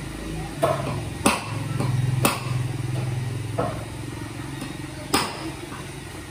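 Four sharp metal hammer strikes on a punch held upright on a block, the first three about a second apart and the last after a longer pause. An engine runs in the background, swelling briefly and then fading.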